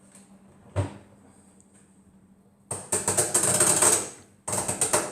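Washing machine controls being worked by hand: a single knock, then two bursts of rapid mechanical clicking, the first about a second and a half long and the second shorter.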